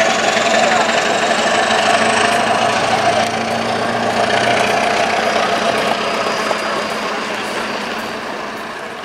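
SU42 diesel locomotive working hard under load as it pushes a departing train, engine running steadily with a thin high whine that rises slightly in pitch. It fades over the last few seconds as the locomotive moves away.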